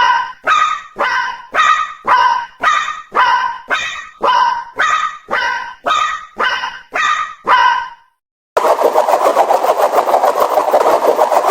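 Japanese railroad crossing warning bell clanging steadily about twice a second, each ringing strike fading before the next. It stops about eight seconds in, and after a brief gap a dense, fast-pulsing noise starts.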